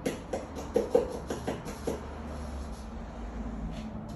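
Background music: a run of sharp drum hits in the first two seconds, then a steadier low hum.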